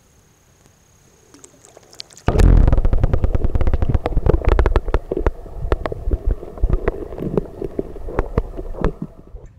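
A camera plunged under the water's surface, with water rumbling and gurgling around its housing as a low, loud churn full of small clicks and crackles, starting suddenly a couple of seconds in. Before that there is only a faint thin high whine.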